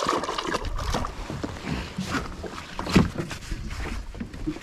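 Water slapping against a small boat's hull, with irregular knocks and a louder thump about three seconds in.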